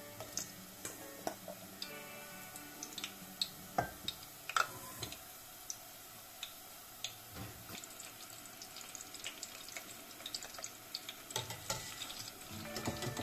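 Diced aubergine (eggplant) deep-frying in hot oil in a stainless-steel pot: a steady sizzle with scattered sharp crackles and pops.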